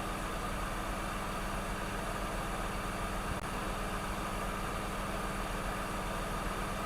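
Steady whir of an electric fan or blower, running evenly with a low hum underneath.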